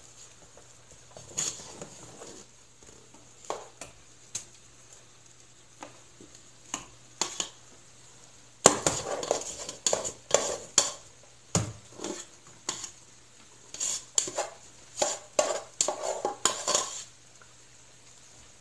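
A spoon clinking, knocking and scraping against a metal cooking pot as cooked sweet rice is spooned into thick, sticky syrup. Sparse at first, then a quick run of knocks and scrapes from about nine seconds in until near the end.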